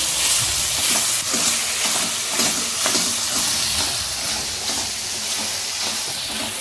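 Chopped ash gourd sizzling and frying in hot oil in a pan, stirred with a spoon that scrapes and taps the pan now and then.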